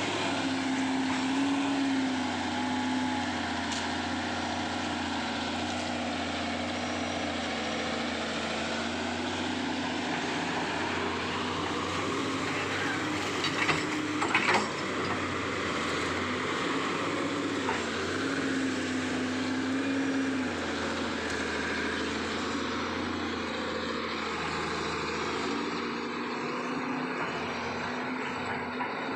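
Sany hydraulic excavator's diesel engine running steadily, its pitch dipping and rising as the hydraulics take load. A few sharp clanks come about halfway through.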